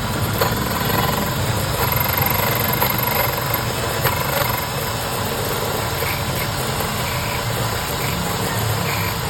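Key-cutting machine running steadily with a low hum as it cuts a duplicate key.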